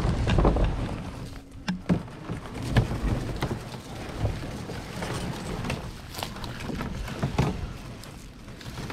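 Plastic fishing kayak dragged over a dirt path and dry brush: irregular scraping and rustling with scattered knocks and clicks.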